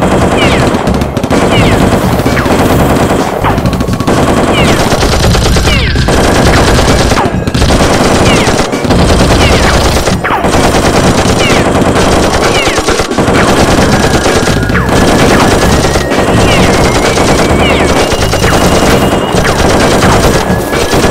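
Action-movie gunfire sound effects: long bursts of rapid automatic fire with brief pauses between them, laid over toy foam-dart blasters in place of their real sound.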